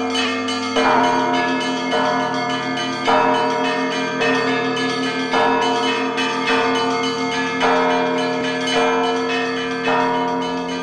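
Church bells ringing: a heavier strike about once a second over the steady, overlapping ring of several bells.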